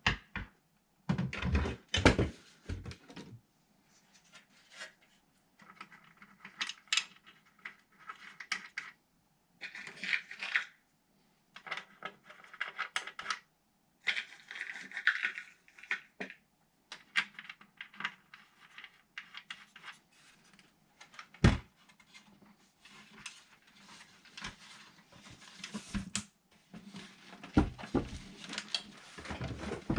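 Glitchy no-input feedback from a DigiTech RP-1 multi-effects processor: irregular clicks, crackles and short buzzy bursts with brief tones, cut off abruptly between bursts.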